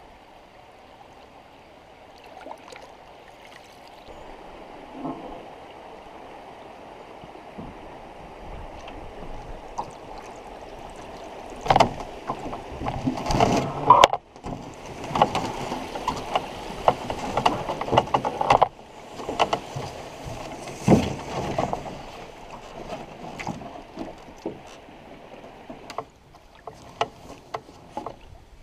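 Canoe being worked over a beaver dam: after a quiet stretch of faint water sound, about twelve seconds in comes some ten seconds of irregular splashing and sloshing with sharp knocks and scrapes against the canoe's hull, then it settles back to quieter water.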